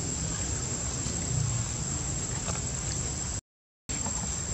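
Outdoor ambience: a steady, high insect drone over a low rumble, with a few faint ticks. It cuts to silence for about half a second, about three and a half seconds in.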